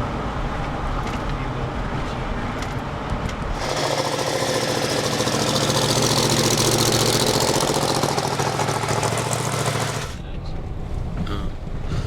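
Car on the road with steady road noise. A few seconds in, a loud engine with a rapid, rattling exhaust note comes in and holds for about six seconds, then drops away, leaving road and wind noise.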